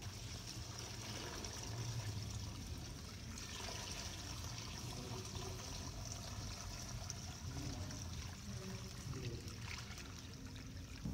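Water pouring steadily from a large tipped plastic jug and trickling along a channel dug in sand.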